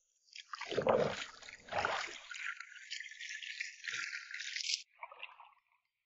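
Bare feet wading through ankle-deep seawater, sloshing and splashing in irregular strokes that are strongest in the first two seconds.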